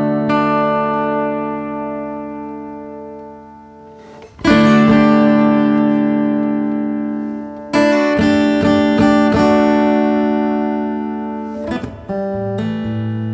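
Yamaha FSX5 steel-string acoustic guitar, strung with extra-light strings, played unaccompanied. Full chords are sounded and left to ring out for several seconds, with a few quick picked notes after each. Strong new chords come about four seconds in and again near the eight-second mark.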